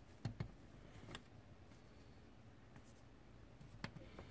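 Faint clicks and taps of plastic LEGO Technic parts being handled and pressed together: a quick pair near the start, another a little after a second in, and one near the end, over near silence.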